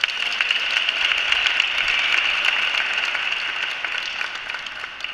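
Large crowd applauding: dense clapping that swells quickly at the start, holds, and fades away toward the end.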